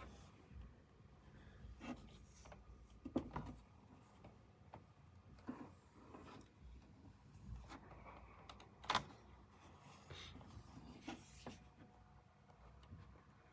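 Faint rubbing with scattered light clicks and knocks; the loudest come about three seconds in and about nine seconds in.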